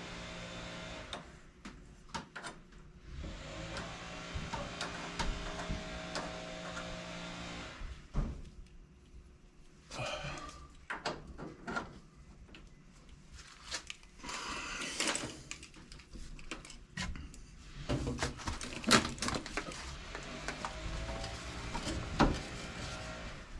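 Hands-on plumbing work: scattered clunks, clicks and knocks of tools and fittings being handled, with a few short scraping or rustling stretches. A steady mechanical hum runs through the first several seconds and then stops.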